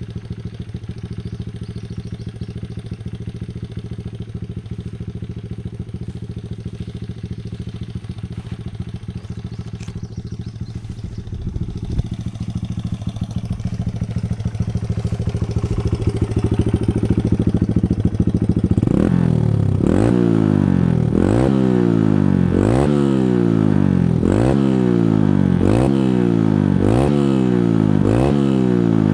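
Honda CRF100F dirt bike's single-cylinder four-stroke engine, heard through an aftermarket exhaust tip. It runs steadily at low revs, then grows louder. From about two-thirds through it is revved again and again, the pitch climbing and then dropping sharply about every second and a half.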